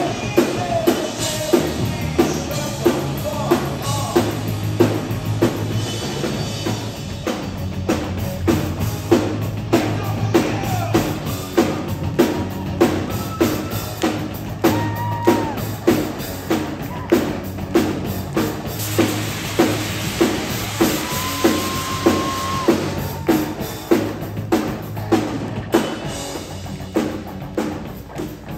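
Live rock band playing an instrumental passage: a drum kit keeps a steady, even beat under distorted electric guitars.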